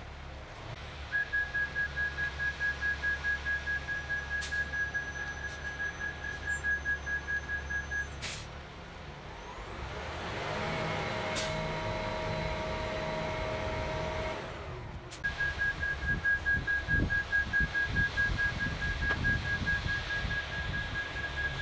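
Concrete mixer truck's backup alarm beeping rapidly at one steady pitch as it reverses into place for the pour. The beeping stops for several seconds in the middle, where another steady sound with several tones takes over, then resumes.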